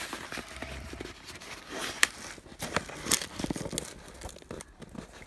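A cardboard box being handled and pulled at: rustling and scraping of cardboard and packing paper, with a few sharp clicks.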